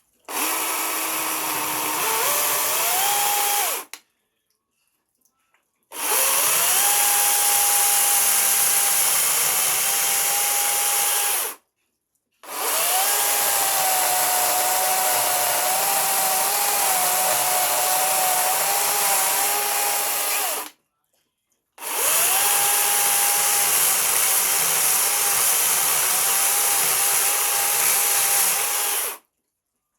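A small electric power tool motor spinning up with a rising whine and then running at a steady speed, in four runs of a few seconds each, each cut off by a brief silence.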